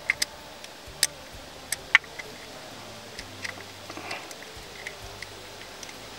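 Irregular light clicks and ticks, a few sharper ones in the first two seconds, as a hand starts the camshaft position sensor's small retaining screw by hand among engine parts.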